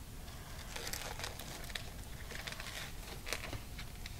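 Plastic wrap crinkling as it is peeled off a foam tray of raw cube steaks, a soft, irregular crackle.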